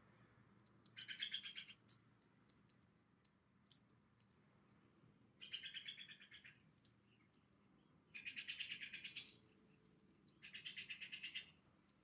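A jay giving four harsh, rasping calls, each about a second long and a few seconds apart, each one a fast buzzy rattle.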